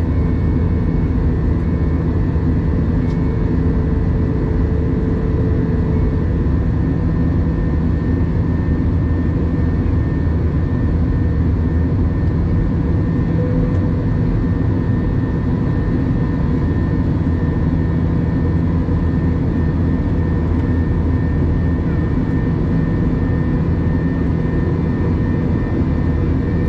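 Steady drone of a jet airliner's cabin in flight, heard from a window seat over the wing: engine and airflow noise, heaviest in the low end, with a few faint steady hums above it.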